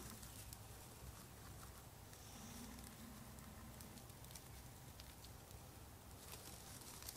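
Very faint crackling and ticking of a freshly lit cedar-bark tinder bundle, barely above near silence.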